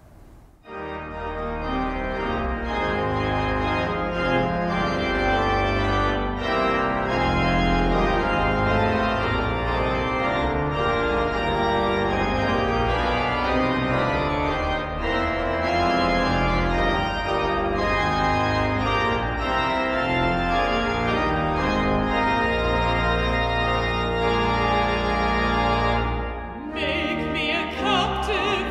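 Schantz pipe organ playing a hymn introduction in sustained, full chords. The organ pauses briefly near the end as a soprano voice begins singing the hymn with it.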